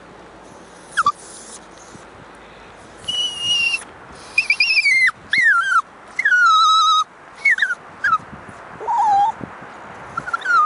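Toy poodle puppy whining in a string of high-pitched cries that start about a second in, most falling in pitch, some short and some drawn out. The owner takes the whining as the puppy's reluctance about the walk.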